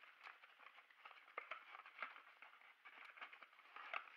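Faint rustling and scraping of a small cardboard box being handled and opened, with scattered small clicks as the plastic puzzle is slid out of it.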